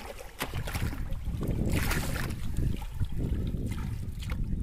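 Water splashing and sloshing as a person wades into waist-deep water, with a few louder splashes, the last from hands flicking at the surface near the end. Wind buffets the microphone with a steady low rumble underneath.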